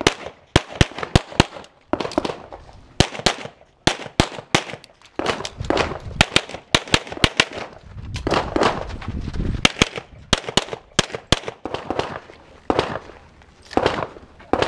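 Glock semi-automatic pistol fired rapidly in quick pairs, about two dozen sharp shots in roughly fourteen seconds, with short pauses between strings.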